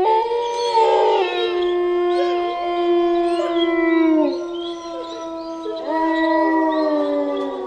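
A chorus of wolves howling: several long, held howls overlap at different pitches while other voices glide up and down over them. One howl fades about the middle and a new one rises about six seconds in.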